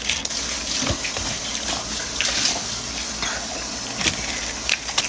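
Close-miked eating of a steak burrito: wet chewing and a few sharp lip smacks over a steady rushing noise.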